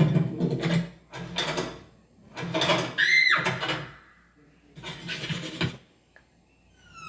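Cartoon sound effects: a string of mechanical clatters and clunks in separate bursts about a second long. One burst carries a short whistle that rises and falls, and a run of falling whistle-like glides comes in near the end.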